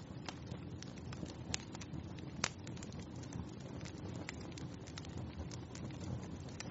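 Wood fire crackling in a fireplace: frequent sharp pops and snaps over a low, steady rush of burning. The loudest pop comes about two and a half seconds in.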